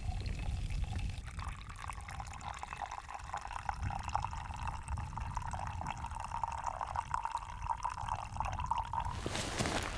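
Coffee poured from a kettle into a mug in a steady stream, starting about a second in and stopping near the end.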